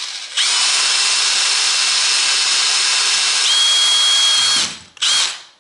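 Small high-speed power tool grinding a screw down to size, its steady high whine dropping a little in pitch about three and a half seconds in. It winds down, then runs again briefly near the end.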